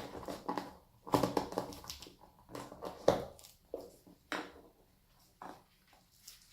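Rustling and crinkling of plastic packaging in irregular short bursts as a wrapped watch is handled and lifted out of its case.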